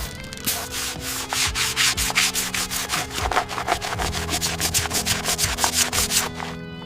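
Rapid back-and-forth scrubbing strokes, about four a second, as grease is scrubbed off engine parts; they stop about half a second before the end. Background music plays underneath.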